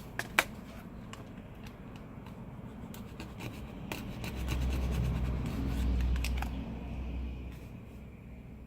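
A small hand tool scratching and scraping at old adhesive on a smartphone's frame, with two sharp clicks about half a second in and a low rumble partway through.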